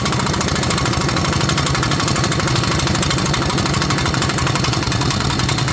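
Pneumatic impact wrench with a 36 mm socket hammering steadily on the wheel hub nut, a loud rapid rattle.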